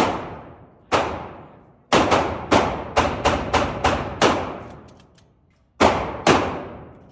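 Glock pistol being fired, about a dozen shots: a few single shots, then a quick string of about seven, then two more near the end, each with a long echoing decay.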